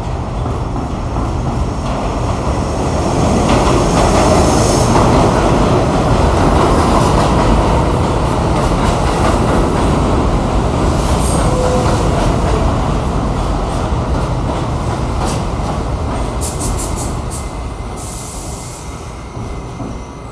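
R68 subway train running into a tiled underground station and braking to a stop. Steady rumble and clatter of wheels on rail that builds as the cars pass, then dies down as the train slows, with a short high hiss near the end.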